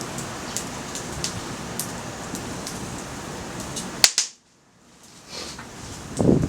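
Wood fire crackling in a Picogrill fire stand, slightly damp firewood giving scattered sharp pops over a steady hiss. About four seconds in, one loud crack, then the sound drops out almost completely for about a second before the crackling returns with a couple of low thumps near the end.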